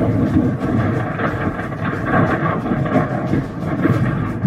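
Large industrial building fire: a continuous rumbling roar with dense, irregular crackling and small pops and bangs.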